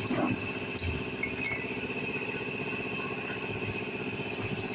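Honda City engine idling steadily, with a steady high whine above it.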